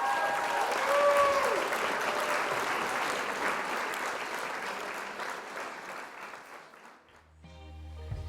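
Crowd applause, with a few brief pitched calls in the first couple of seconds, dying away over about seven seconds. Music begins near the end.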